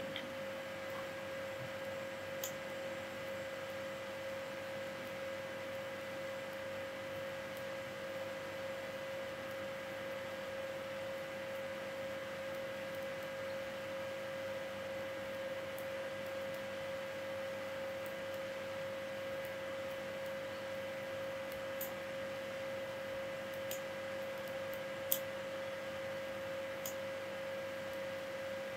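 A steady, unchanging whine at one pitch, with a faint hiss beneath it and a few faint clicks, two of them near the end.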